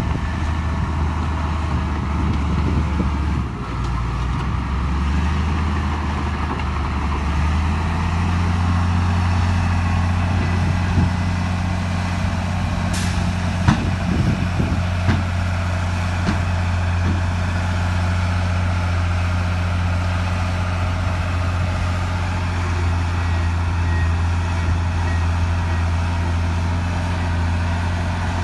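Heavy bulldozer diesel engine running steadily under load. Its speed steps up about eight seconds in, with a few sharp metallic clanks near the middle.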